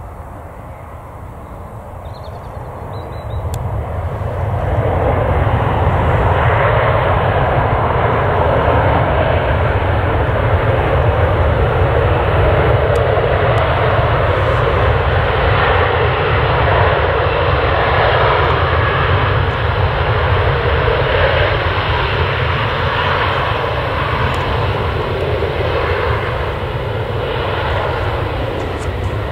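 Jet airliner's engines, growing louder over the first few seconds and then running loud and steady as the aircraft passes.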